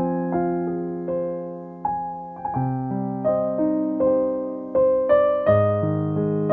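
Background piano music: single notes struck one after another over low chords, each fading away after it is struck.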